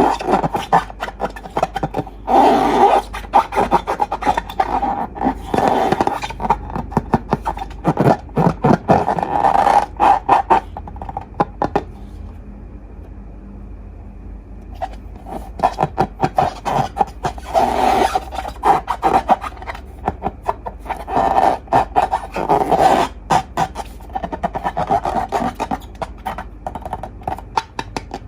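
Slime being squeezed and worked by hand, a dense run of sticky crackles and pops with a pause of a few seconds about midway.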